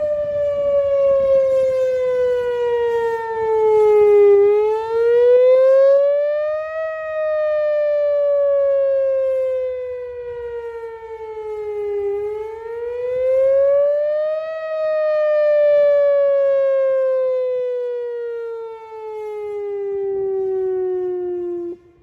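Outdoor tornado warning siren wailing: one loud tone that slides slowly down in pitch and climbs back up, about once every eight seconds, then stops abruptly near the end.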